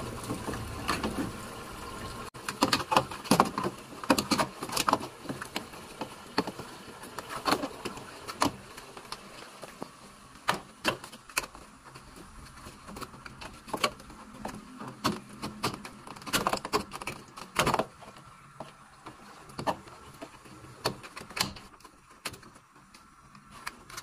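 Irregular clicks, taps and light rattles of hands working on the washing machine's water-level sensor pressure hose and the plastic parts around it.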